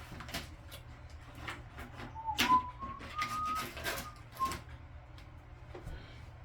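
Clicks and knocks of an Allen key working at the tight set screw of a Delta faucet handle. A short high tone steps up and down in pitch for about two seconds in the middle.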